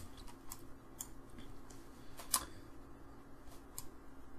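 Scattered sharp clicks of a computer mouse, about a dozen at irregular intervals, the loudest a little past two seconds in, over a faint steady hum.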